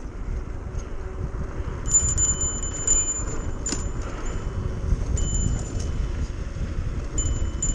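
Mountain bike rolling down a dirt trail: a steady rumble of tyres and wind on the microphone. Several short spells of a rapid high-pitched buzzing come from the freehub ratcheting as the rider coasts.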